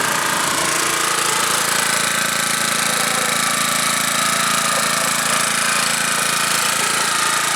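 Engine of a 1987 Honda lawnmower running steadily at high throttle, just after being started on choke.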